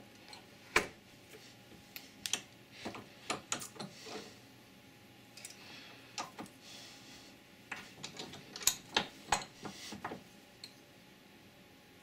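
Irregular sharp metallic clicks and taps as a thin metal bracket is clamped in a bench vise to straighten it and handled with pliers: the vise handle turning, the jaws closing on the metal, and the pliers knocking against the piece.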